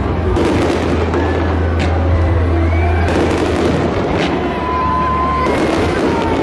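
Fireworks display: aerial shells bursting with a few sharp bangs, about two to three seconds apart, over a steady low rumble.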